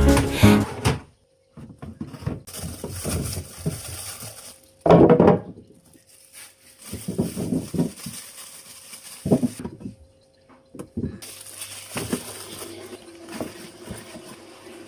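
Food containers and packaging being handled and set in a fridge: irregular rustling, light clunks and knocks, the loudest about five seconds in, over a faint steady hum. A song fades out just after the start.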